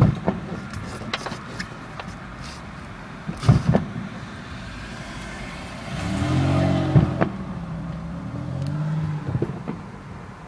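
Fireworks exploding: a sharp bang at the start, a quick pair of bangs about three and a half seconds in, and another near seven seconds. Over the middle a motor vehicle's engine swells up and fades, twice.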